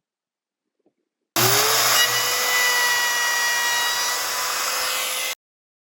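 Woodworking power tool's electric motor starting up: a whine that climbs quickly to a steady high pitch over a rushing noise, running for about four seconds and cutting off abruptly.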